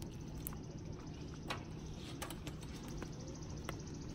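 Sticky homemade slime being kneaded and pulled apart by hand, giving a few scattered soft clicks and pops over low outdoor background noise; the slime is still sticky and clinging to the fingers.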